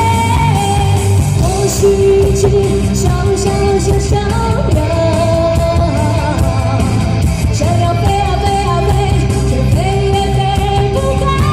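Pop-rock song with a sung melody over band backing of guitar and a steady drum beat.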